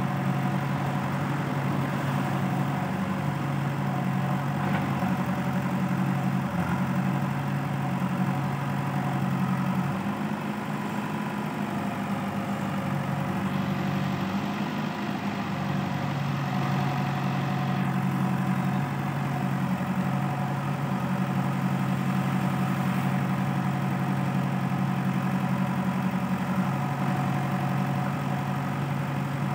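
Diesel engines of a JCB backhoe loader and a Sonalika tractor running, a steady low hum while the backhoe digs and loads soil into the tractor's trolley.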